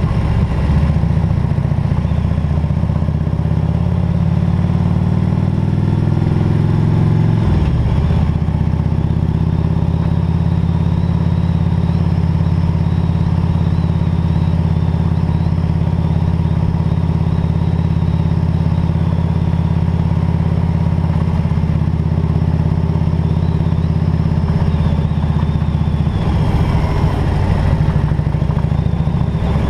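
Harley-Davidson Road King's V-twin engine running under way. It climbs in pitch for a few seconds, drops sharply about eight seconds in, then holds a steady note.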